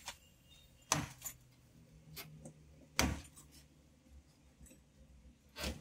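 A few separate sharp clicks and small clatters, the loudest about three seconds in, from hands working the van's door trim panel loose.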